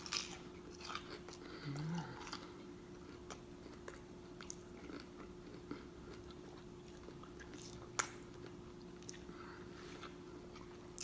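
Faint close-up chewing of food, with scattered wet mouth clicks and smacks and one sharp click about eight seconds in.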